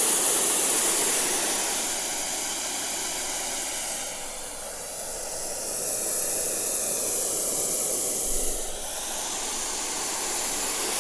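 Steady hiss of test noise from a small handheld speaker as it is moved around a condenser microphone to test off-axis rejection. The hiss fades about four seconds in, swells again, and dips once more near the end as the speaker's angle to the microphone changes.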